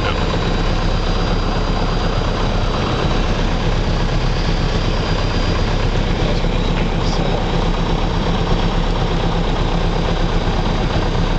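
Piper Cherokee 140's four-cylinder Lycoming engine and propeller running steadily at low power, heard from inside the cockpit.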